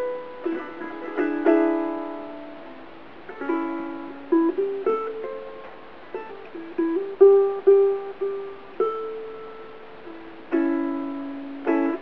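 Covered Bridge redwood and myrtle tenor ukulele played solo in a blues style: fingerpicked single-note runs between full chords, with a chord rung out near the end.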